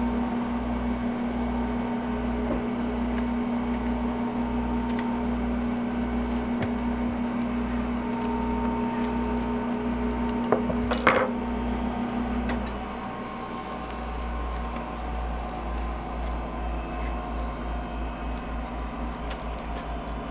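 Industrial sewing machine's electric clutch motor running without sewing, a steady hum over a low, even throb. There is a sharp clack about eleven seconds in. Shortly after, the hum stops while the throb carries on and quickens.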